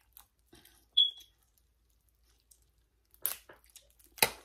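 King crab leg shell being cut open: a few short, sharp crunches and cracks, the loudest near the end.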